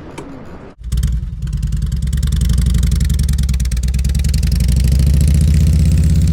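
Harley-Davidson V-twin motorcycle engine coming in suddenly about a second in and idling steadily with a fast regular pulse, getting slightly louder.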